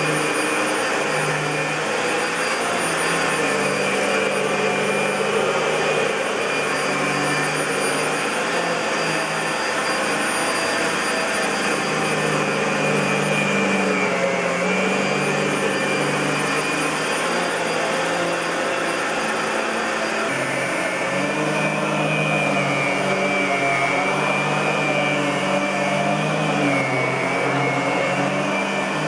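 1999 Fantom Lightning LC56-00 bagless canister vacuum cleaner running steadily, a loud, even rush of air with a low hum that shifts in pitch now and then.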